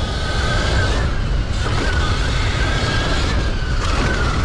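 Sur-Ron electric dirt bike's motor whining while ridden hard over jumps, its pitch rising and falling with the throttle, over heavy wind rumble on the microphone.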